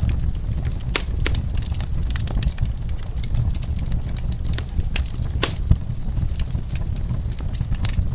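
Wood fire in a fireplace crackling, with irregular sharp pops and snaps, the loudest about a second in and again past the five-second mark, over a steady low rumble.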